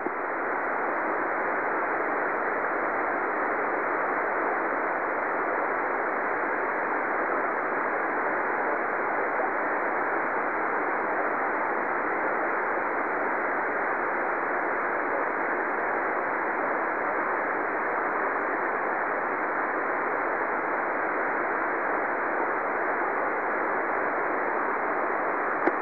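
Amateur radio receiver on the 40-metre band giving a steady hiss of band noise through its narrow voice passband, with a faint high steady tone above it. The station being listened for has faded down into the noise.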